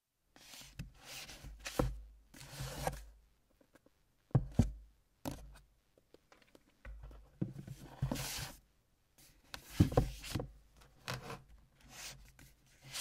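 Close, irregular rustling and scraping handling noises in short bursts, with a few sharp knocks and low thumps; the loudest are two knocks close together about four and a half seconds in.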